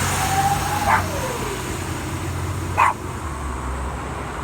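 A dog whining, with three short barks about a second in, near three seconds and at the end, over a low steady vehicle rumble.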